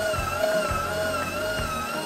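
Background music: a held, gently wavering high tone over a low bass line.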